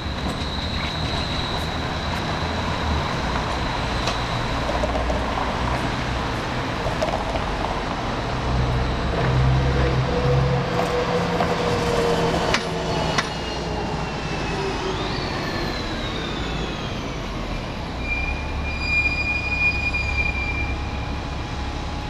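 Portland Streetcar running past on its rails, with a high steady squeal in the first few seconds. About halfway through, a city bus passes close by with its engine running. Falling whines follow, and a high steady tone comes near the end.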